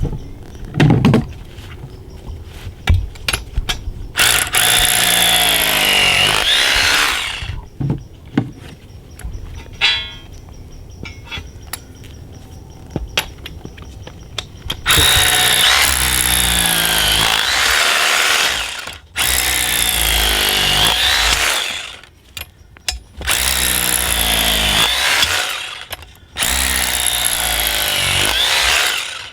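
Power drill boring holes into the ground, run in five bursts of a few seconds each, its pitch sagging and recovering under load, with knocks and clicks between the bursts.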